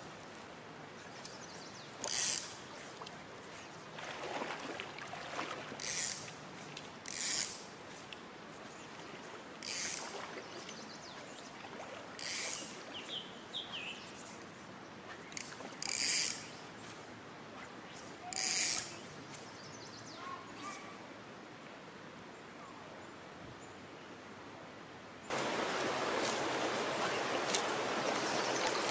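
Fly line and reel giving short rasping zips every two seconds or so, as line is pulled in short strips to work a wet fly like a darting minnow, with a bird chirping faintly now and then. About 25 seconds in, the steady rush of the river current close by takes over and becomes the loudest sound.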